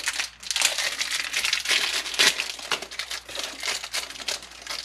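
Thin clear plastic packaging crinkling and crackling as it is opened by hand, in quick irregular bursts.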